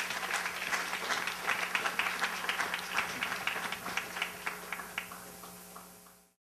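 Audience applauding, a dense patter of many hands clapping that thins out over the last second or so and then cuts off suddenly.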